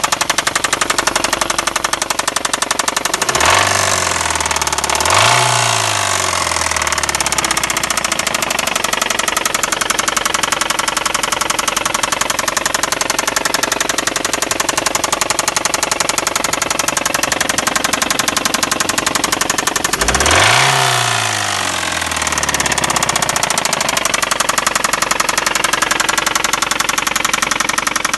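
Ford car engine running at idle with a rapid, steady knock from inside the motor, blipped up in revs twice a few seconds in and once more about two-thirds of the way through. The owner cannot tell what is causing the knock.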